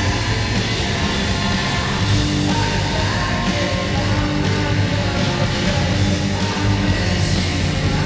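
Loud heavy rock song with a steady driving beat, played as a hockey goal celebration song.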